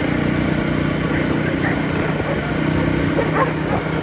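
Motorbike engine running steadily under way, with dogs barking a few short times over it.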